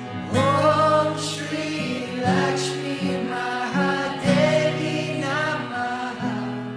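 Devotional song: a sung melody without clear words over sustained instrumental backing, fading down near the end.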